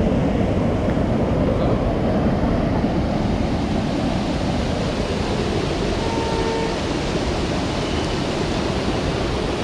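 Muddy floodwater rushing over a road and down its bank in a steady, low rushing noise.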